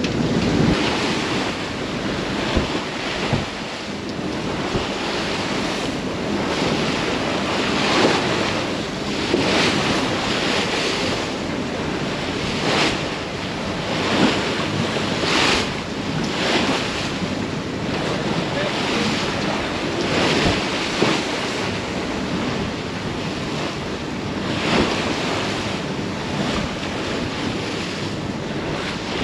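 Sea waves rushing and splashing past a sailing yacht's hull in a big following swell, with wind buffeting the microphone. Louder surges of spray come every few seconds.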